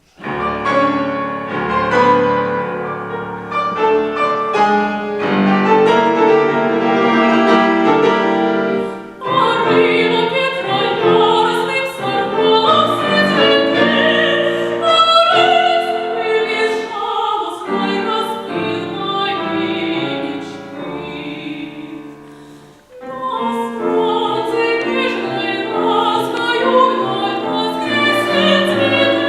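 Classical art song: a trained singer with vibrato, accompanied by piano. The piano plays alone at first, and the voice enters about nine seconds in.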